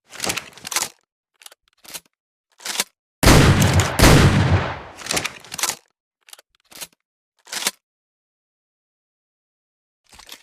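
Double-barrel shotgun sound effect: a few short mechanical clicks, then two loud shots a little under a second apart, each with a long echoing tail, followed by more sharp clicks and clacks of the gun's action being handled.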